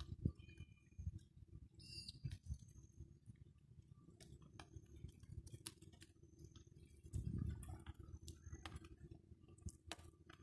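Faint handheld walking sounds: low, uneven footstep thumps and handling rumble, with a louder rumble about seven seconds in. Birds chirp briefly now and then over it, with scattered small clicks.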